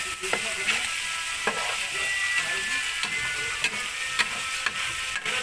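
Chili sambal sizzling in oil in a frying pan with fried eel pieces, while a spoon stirs it, scraping and clicking against the pan; the sambal is being stirred so it cooks through.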